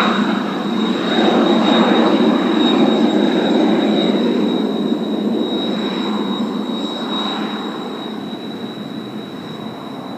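Blue Impulse Kawasaki T-4 jets with their turbofan engines running on the ground before takeoff. A steady high whine sits over a rushing sound that swells and ebbs, and it grows fainter over the last few seconds.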